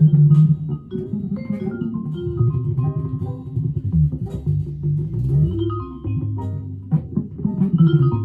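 Electric guitar playing a slow jazz tune, a steady run of single notes and chords, with a bass line and light percussion underneath.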